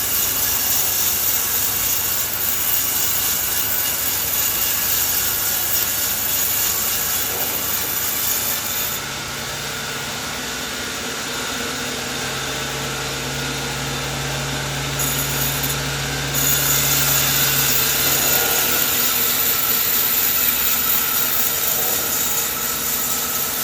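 Sawmill saw running and cutting coconut tree wood. About 9 s in the sound drops to a quieter stretch with a steady low hum, then returns louder about 16 s in.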